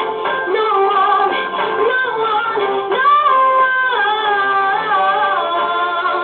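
A girl singing a song, holding long notes and stepping between them.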